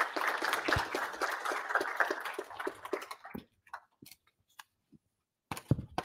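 Audience applauding: a dense patter of many hands clapping that dies away about three seconds in, leaving a few scattered claps.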